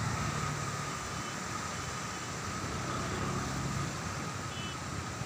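Steady low rumble of passing road traffic with a faint held whine.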